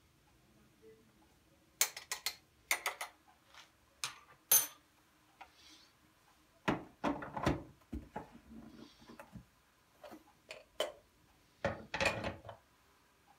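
Clicks, knocks and clatter of a Sinbo espresso maker's metal portafilter being handled and fitted into the group head, then its glass carafe being set in place beneath it. No pump or steam sound yet.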